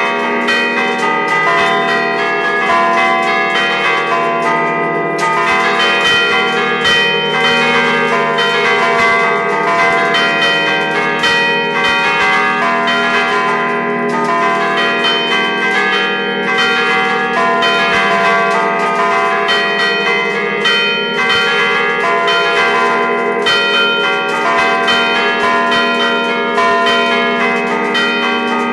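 Bronze church bells of a five-bell ring in E-flat, cast by Achille Mazzola in 1951 and tuned slightly flat, ringing from close by in the belfry. Strokes follow one another closely and overlap, so the ringing never dies away.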